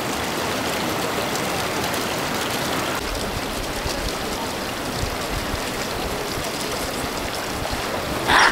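Steady rush of running water around a hot-spring pool, with no clear rhythm; its tone shifts slightly about three seconds in. A louder, sharper sound breaks in at the very end.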